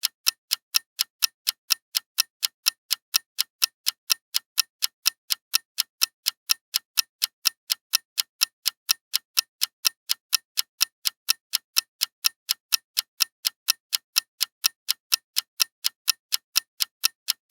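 Clock ticking steadily: sharp, evenly spaced high ticks, about four a second.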